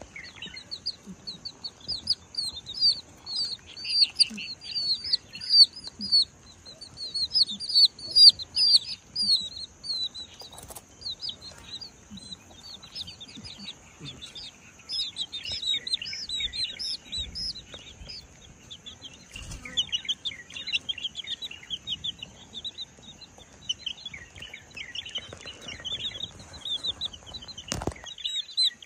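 Domestic chicks peeping: a constant stream of short, high, falling peeps, busiest in the first third and again in the last half, over a faint steady high-pitched drone.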